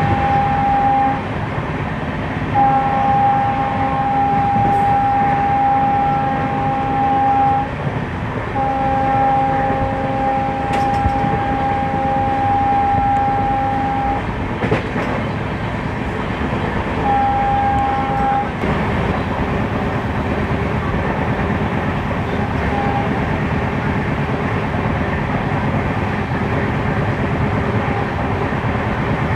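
WDP4D diesel locomotive's horn blowing a series of long blasts, the longest about five seconds, then a short toot about three-quarters of the way through. Underneath is the steady running noise of the train's coaches on the track, heard from an open coach door.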